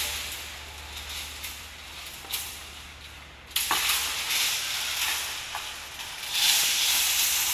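Long steel rebar rods scraping as they are dragged over one another out of a pile, a hissing scrape that swells and fades, with a sharp metallic clank about three and a half seconds in and louder scraping near the end. A low steady hum runs underneath.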